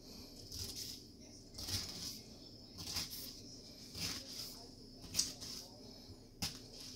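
Chef's knife cutting through pineapple flesh onto a plastic cutting board, a string of short knocks and slicing sounds roughly every second, the sharpest about five seconds in, over a steady low hum.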